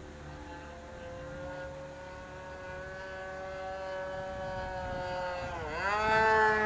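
A small engine on a radio-controlled model plane, running steady and high-pitched in flight, its note slowly rising. Near the end the pitch dips briefly and then climbs sharply as it gets much louder.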